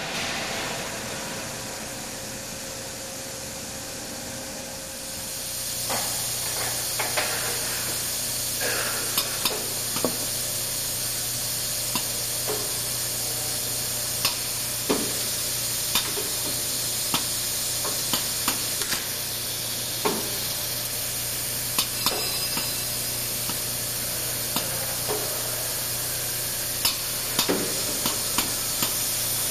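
Needle bearing insert machine at work: sharp mechanical clicks and knocks every second or two, starting about five seconds in, over a steady hiss and a low hum.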